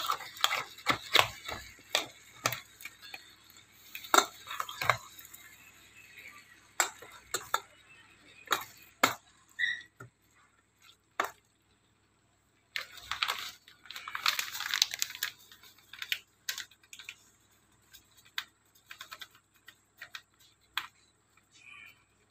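A spoon clinking and scraping against a stainless-steel pot while fermented fish is stirred: a quick run of clinks and knocks, growing sparser after about nine seconds, with a stretch of rougher noise about thirteen seconds in.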